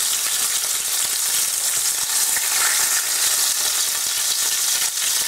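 Beef burger patty topped with cheese frying in hot fat in a pan: a steady sizzling hiss.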